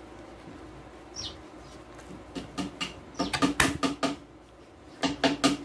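Sharp plastic clicks and clacks from a hand-held electric palm sander being handled, its sandpaper clamp worked by hand while the motor is off. A quick cluster of clicks comes in the middle and a few more near the end.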